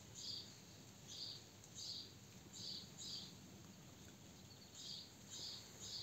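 A bird calling with short, high repeated chirps, about eight of them with a pause of a second or so around the middle, over a faint low background hum.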